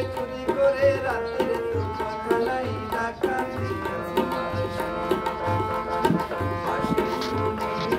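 Harmonium and tabla playing together: the harmonium holds sustained reed chords while the tabla keeps a steady rhythm, with a deep bayan stroke about once a second.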